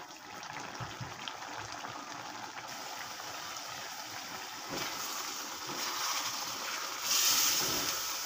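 Thick chili sauce with shrimp simmering and bubbling in a wok as it reduces. About seven seconds in, a wooden spatula starts stirring it, and the sloshing and scraping get louder.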